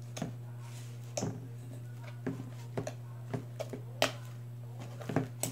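Hands kneading sticky slime in a stainless steel mixing bowl: a scattered series of short, sharp clicks and pops, about nine over a few seconds, with a steady low hum underneath.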